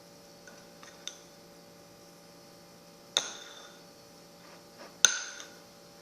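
Spoon clinking against a bowl while stirring a flour and dish-soap mixture: a light tap about a second in, then two sharp ringing clinks about three and five seconds in.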